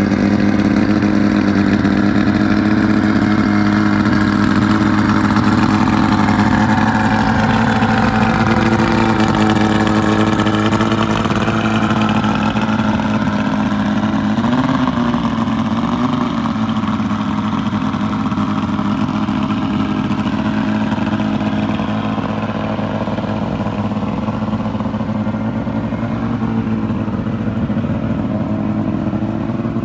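Mercury 75 hp two-stroke outboard motor idling steadily while tilted up on its trailer, with a brief wobble in its pitch about halfway through.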